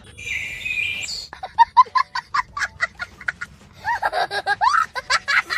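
A bird calling in a quick run of short, repeated notes, then a busier stretch of rising and falling calls, after a brief hiss-like sound at the start.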